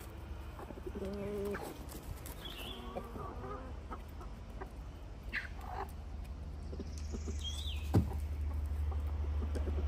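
Chickens in a backyard flock clucking and calling now and then, with a few short high chirps. A low rumble grows louder near the end, and a single sharp knock comes about eight seconds in.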